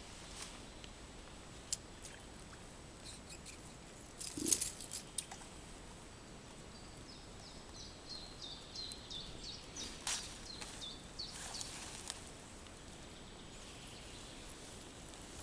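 A small songbird singing a run of short, high chirps for several seconds in the middle, over scattered rustles and clicks, with a louder knock about four and a half seconds in.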